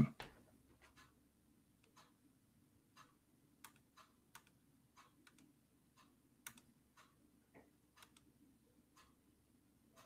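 Faint ticking, about one tick a second, with a few louder irregular clicks in between. A short thump comes right at the start.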